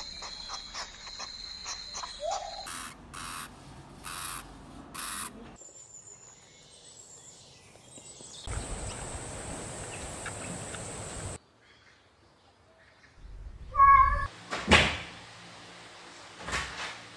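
A run of different short animal sounds cut one after another, with abrupt changes between them: sharp repeated strokes over steady high tones at first, a steady hiss in the middle, and a short pitched call near the end followed by a few loud knocks.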